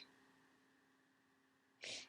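Quiet, short sniffs through a congested nose from someone with a cold: one near the end and the tail of another at the very start, with near silence and a faint steady hum between.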